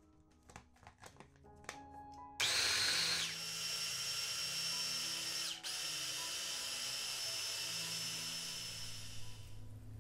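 Electric mini food chopper running, its blades grinding cooked rice into a sticky paste. The motor starts about two and a half seconds in, loudest for the first second, dips for an instant and picks up again midway, and stops near the end, over light mallet-percussion background music.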